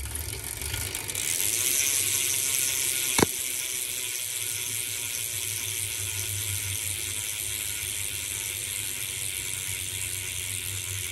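Free Night Planetary planetary-clutch cassette freecoaster BMX hub spinning freely, giving a steady fast ratcheting buzz that builds over the first couple of seconds and then holds even. One sharp click stands out about three seconds in.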